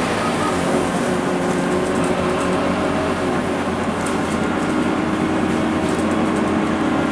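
Scania K230UB city bus heard from inside the passenger saloon while driving: its rear-mounted five-cylinder diesel engine runs steadily under the hum of the tyres, with light rattling from the interior fittings.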